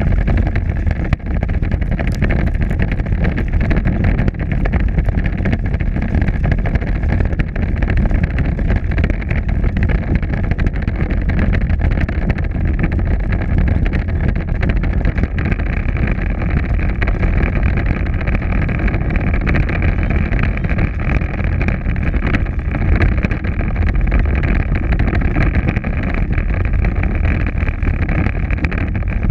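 Power Wheels ride-on toy car driving steadily across asphalt: a constant whine from its motors and gearbox over the rumble of its wheels on the pavement.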